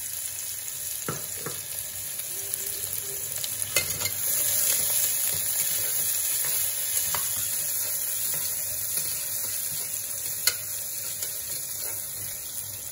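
Sliced onions sizzling steadily in hot oil in a pressure cooker, being stirred with a perforated metal ladle. The ladle clicks against the pot a few times, most sharply about ten seconds in.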